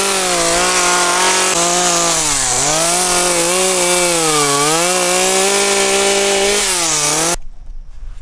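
Small two-stroke top-handle chainsaw carving into a wood log at high revs, its pitch dipping three times as the chain bites and bogs in the cut. The sound stops abruptly near the end.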